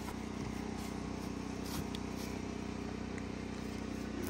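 A steady low mechanical hum, like an engine idling.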